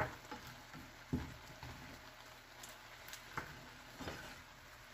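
Wooden spatula stirring shrimp and mushrooms in a frying pan, giving a few soft, irregular knocks and scrapes against the pan over a faint steady simmer of the cooking juices.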